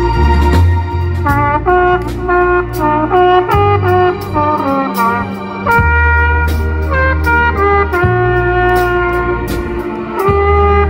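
Live band music: a trumpet plays the melody in clear, stepped, held notes over a bass line and a drum kit keeping a regular beat with cymbal hits.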